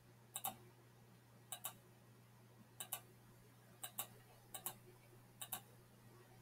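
Computer mouse buttons clicking: about six quick press-and-release double clicks spread roughly a second apart, over a faint steady low hum.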